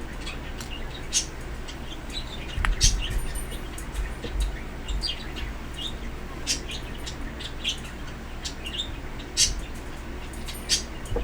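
Pet birds chirping, many short high chirps every second or so, with a few low thumps mixed in.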